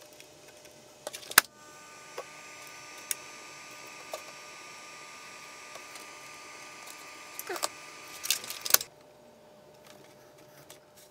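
Clicks and small knocks of hands working among the wiring of an electronics enclosure. A steady hum with a faint high whine starts right after a sharp click about a second and a half in, and cuts off suddenly after a few more clicks near the end.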